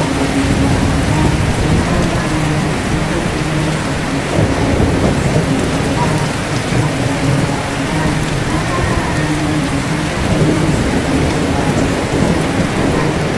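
Steady heavy rain with low thunder rumbling underneath.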